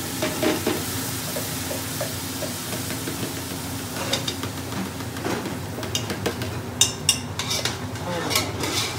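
Hot ghee sizzling as drained, still-wet basmati rice is poured into a large aluminium pot. From about halfway, a spoon clinks and scrapes against the pot as the rice is stirred.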